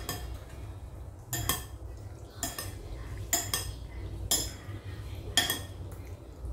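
A metal utensil clinking against cookware, about seven sharp clinks at uneven intervals, some in quick pairs.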